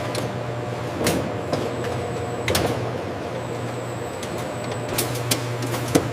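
Factory processing machinery running with a steady low hum, and a handful of sharp clicks and knocks a second or more apart.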